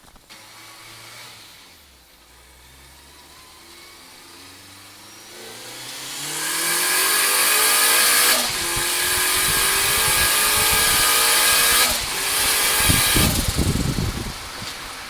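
Turbocharged Toyota four-cylinder pickup engine accelerating hard: the revs climb steadily, drop sharply at a gear change about eight seconds in, climb again, and break off around twelve seconds in. A loud rushing hiss rides over the engine while it pulls, and low thumping follows near the end.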